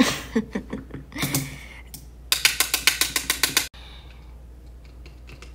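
A rapid, evenly spaced run of sharp mechanical clicks, about nine a second, like a ratchet. It starts a little past two seconds in, lasts just over a second and cuts off abruptly. It is preceded by a couple of short voice-like squeaks.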